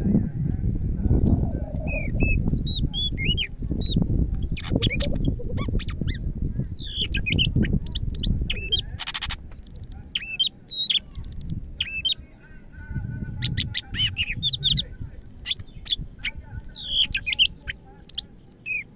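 A caged greater green leafbird (cucak ijo) singing in full, continuous song: a fast, varied run of sweeping whistles, chirps and sharp notes, with one short harsh buzzy note about nine seconds in. A low rumble underlies the first half.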